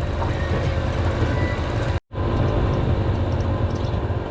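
Steady low engine drone that cuts out abruptly for a moment about two seconds in, then carries on.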